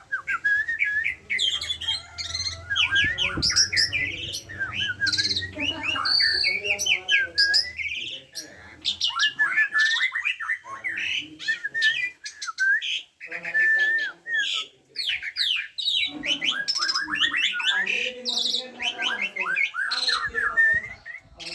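Pied starling (jalak suren) singing a long, varied song of rapid chattering notes, sliding whistles and harsher squawks, broken by a few short pauses.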